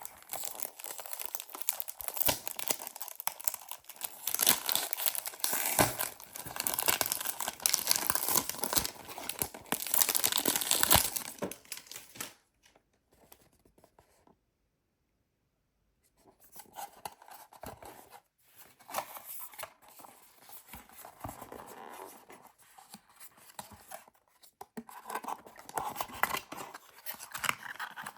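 Plastic wrapping on a perfume box being torn and crinkled as it is pulled off. The dense crackling stops about twelve seconds in, and after a pause of a few seconds quieter crinkling and box handling resume, growing busier near the end.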